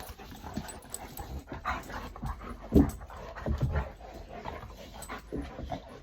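Two dogs panting hard, their claws clicking and tapping on a hard floor as they move about, with one louder short sound a little under three seconds in.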